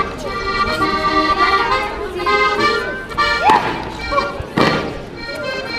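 Accordion playing a traditional folk dance tune, with the sharp slaps and stamps of Schuhplattler dancers striking thighs, shoes and hands to the beat; two loud strikes stand out a little past the middle.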